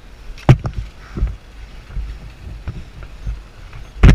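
Dull, irregular thumps over a low rumble: a body-worn camera being jostled and bumped as its wearer moves, with a strong knock near the end.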